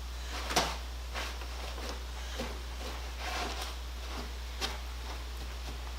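An old wooden carpenter's toolbox being handled: a few light knocks and clunks of wood, the sharpest about half a second in, over a steady low hum.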